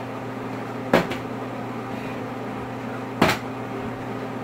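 Two knocks of a plastic water bottle landing on a wooden table, a little over two seconds apart, over a steady low hum in the room.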